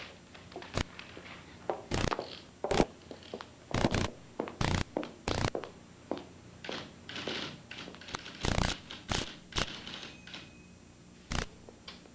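Typewriter being worked: paper rustling as a sheet is pulled out and a new one fed in, with single keystroke clacks and thunks at irregular intervals.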